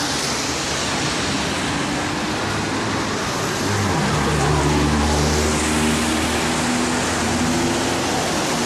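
Street traffic noise, a steady rush of passing cars. A motor vehicle's engine passes close, its low hum louder for a few seconds from about four seconds in.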